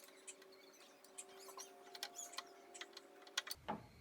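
Faint, scattered small clicks and taps of pen-kit parts and turned blanks being handled for assembly, over a faint steady hum.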